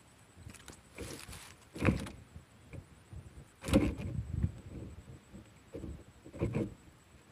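Handling noise close to the microphone: a few irregular knocks and scrapes with quiet between them, the loudest about two and about four seconds in.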